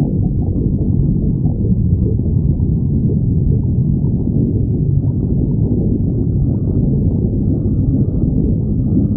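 Stomach growling: a loud, continuous low rumble that runs on without a break.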